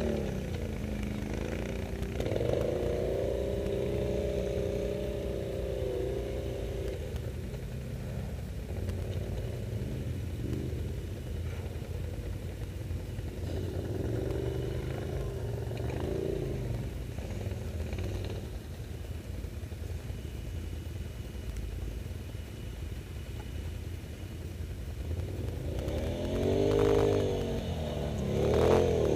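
Quad bike engines revving in bursts over a steady low engine rumble, the pitch climbing and dropping with the throttle. The loudest revving comes near the end, as one quad climbs through the snow close by.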